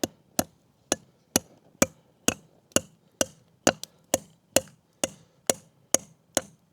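Hammer driving a pin into the top of a log to make a hanger: about fifteen steady, evenly spaced blows, a little over two a second.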